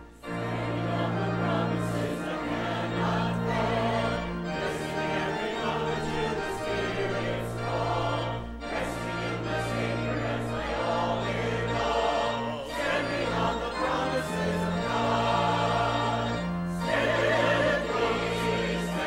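A church choir singing, accompanied by organ with long held bass notes.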